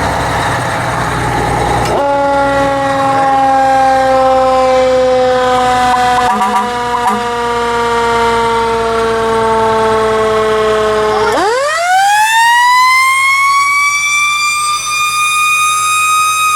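Fire truck siren sounding after about two seconds of rushing noise: a tone that slowly falls in pitch, then about eleven seconds in sweeps sharply up to a high pitch and holds there.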